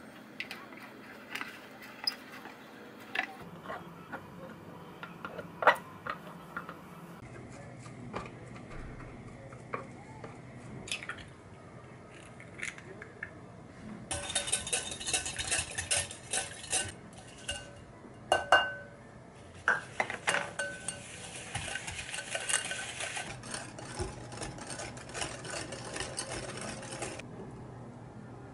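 Kitchen utensil sounds: scattered clinks and knocks of a spatula pressing grated carrot in a plastic container. From about halfway through, a wire whisk beats egg rapidly against a glass mixing bowl in two long runs, with a few sharper knocks on the bowl.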